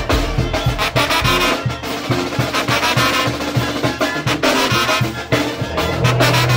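Instrumental brass-band music with no singing: trumpets and trombones playing over a steady beat.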